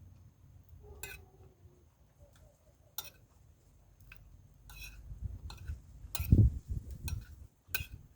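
Eating at the table: a spoon clinking against a plate a few times, with close, low chewing and handling thumps in the middle, loudest about six seconds in.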